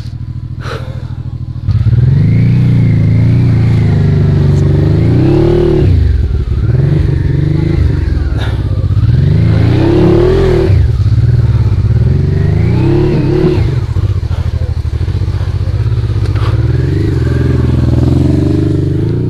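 Suzuki V-Strom motorcycle engine running at a low idle, then about two seconds in opening up and revving hard, its pitch rising and falling again and again.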